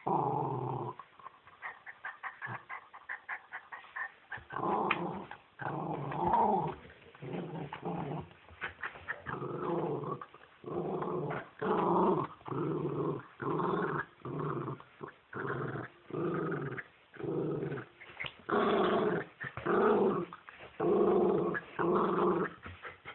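A dog growling in a long series of rumbles, each lasting about half a second to a second, with short breaks between them. In the first few seconds there is a run of quicker, shorter sounds.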